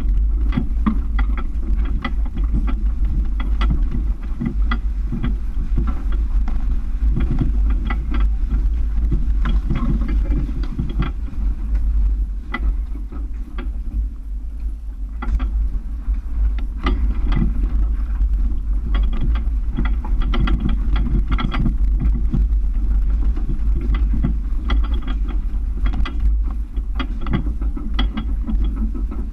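Toyota FJ Cruiser's 4.0 L V6 engine running at low speed as the truck crawls over loose rock, with frequent short knocks and rattles from the tyres on stones and the truck jolting over them.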